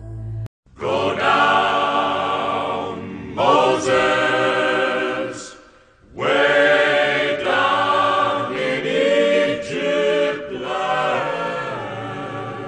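A choir of voices singing a chant-like piece in long sustained phrases, starting about a second in, with a brief break about six seconds in.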